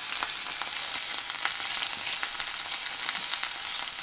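Chicken combs frying in hot oil in a pan: a steady sizzle broken by many small sharp pops and crackles of spitting oil.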